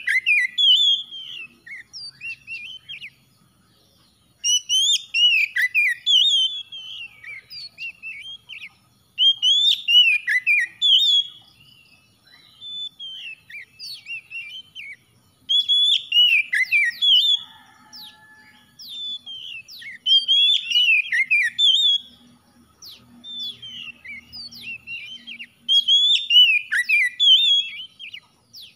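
Oriental magpie-robin singing: loud phrases of quick whistled notes that slide up and down, coming about every five seconds, with softer scattered notes in between.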